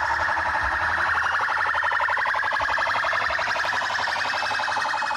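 Loud electronic siren-like alarm blaring from a tribute message car's loudspeakers, a steady, rapidly pulsing tone that does not break.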